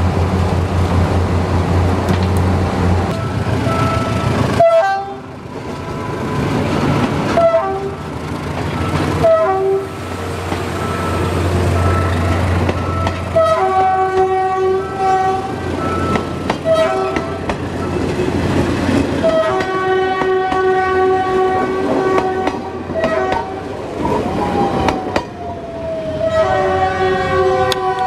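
Philippine National Railways diesel train sounding its multi-tone horn again and again: a few short toots a couple of seconds apart, then longer blasts, over a low engine rumble. Near the end a second horn tone slides downward in pitch.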